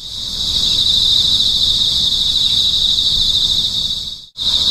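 Insects buzzing in a steady high-pitched chorus with a fast shimmer. It breaks off for an instant near the end, then resumes.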